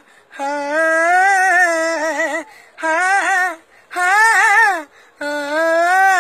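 A boy singing unaccompanied: a wordless, ornamented vocal opening in four drawn-out phrases with short breaths between, the high voice gliding and wavering in pitch.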